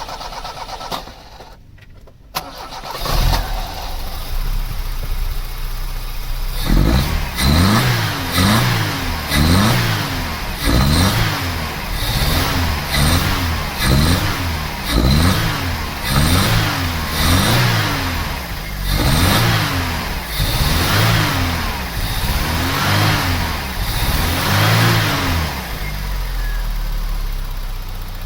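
Vauxhall Cavalier's 1.8-litre four-cylinder engine with an SRi 130 top end, running and then blipped up and down about once a second for nearly twenty seconds before dropping back to idle near the end. It is being tested with a substitute airflow meter while it misfires on cylinder 3, and the misfire is unchanged.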